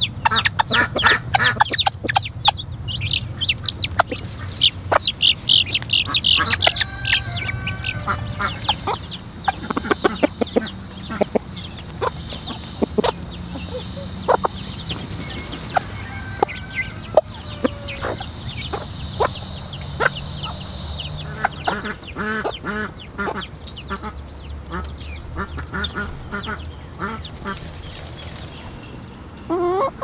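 Silkie chickens, young and adult, calling while they feed. Quick high peeping is thickest in the first six seconds, then clucking follows, with sharp ticks of beaks pecking cracked corn off the ground throughout.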